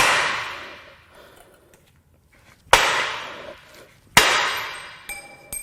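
Three heavy hammer blows on a blown 4.6L DOHC V8 engine block, about a second and a half apart, each ringing on as it fades, as the block is beaten to crack it open. Near the end, small metal pieces clink as they fall.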